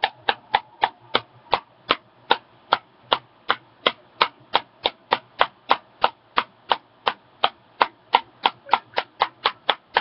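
A tin of Copenhagen Long Cut Wintergreen dip being packed: the closed can is snapped against the fingers with a flick of the wrist, about three sharp taps a second, settling the tobacco in the tin.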